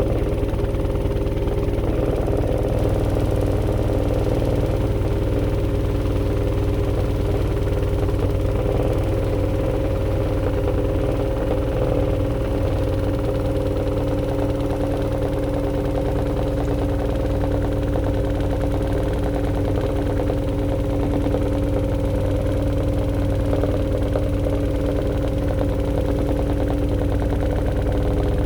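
AQUA AQW-DX12M front-loading drum washing machine spinning at steady high speed in its spin-dry stage, set to 1200 rpm. It makes an even hum of several held tones over a deep rumble.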